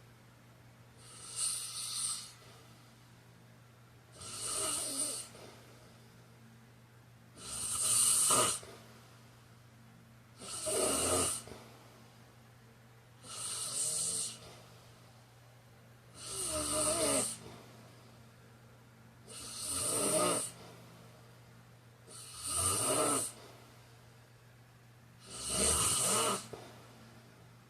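A man snoring in slow, regular breaths, about one snore every three seconds, nine in all, each lasting about a second.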